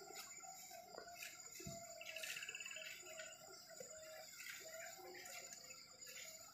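Faint birds chirping over a steady high insect whine, with a brief rapid trill about two seconds in.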